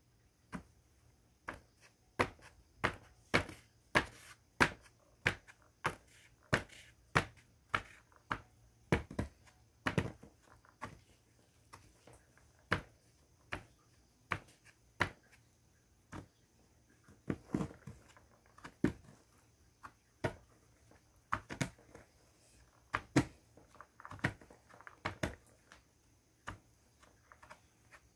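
Colored heart-shaped naphthalene mothballs being crushed under a gloved hand: a string of sharp cracks and crunches, coming quickly a few seconds in, then in scattered clusters.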